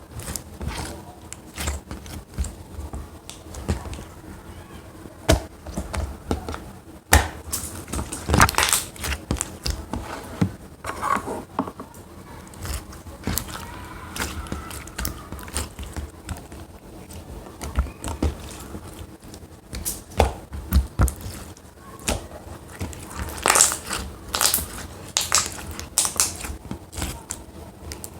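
Stationery-store slime being squeezed, pressed and stretched by hand, giving irregular sticky clicks, pops and crackles.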